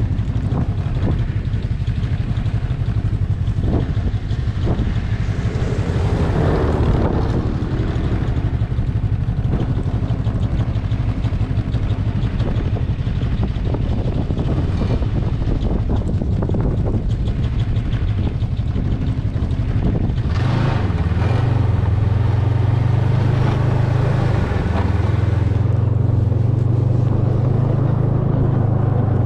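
Snowmobile engine running steadily under way, growing louder about twenty seconds in.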